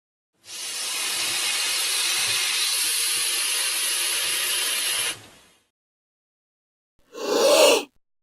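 Titanoboa giant-snake sound effect: a long, steady hiss of about five seconds that cuts off sharply, then after a pause a short, deeper breathy burst near the end.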